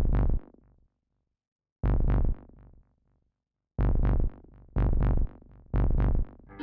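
Electronic synthesizer music made of five heavy, deep stabs, each dying away. The first three come about two seconds apart, and the last three a second apart.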